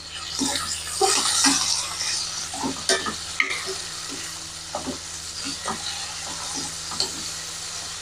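Spatula stirring chopped tomatoes, chilies, garlic and shallots frying in hot oil in a nonstick wok: a steady sizzle, loudest in the first couple of seconds, with frequent short scrapes and taps of the spatula against the pan.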